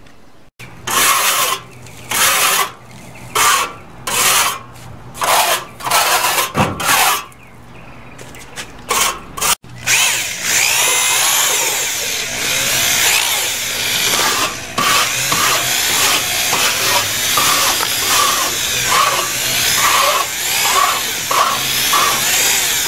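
Handheld drill fitted with a paddle mixer, stirring a thick grey cement mix in a bucket. It runs in a string of short bursts at first, then runs steadily from about ten seconds in, with a regular pulsing churn.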